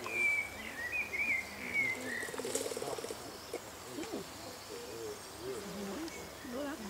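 Animal calls: a high wavering call for the first two seconds, a short pulsed croak about two and a half seconds in, then a run of low wavering calls.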